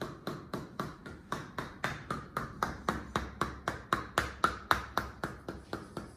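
Chiropractor's hammer tapping steadily on the patient's body, about four sharp taps a second, each with a brief ring.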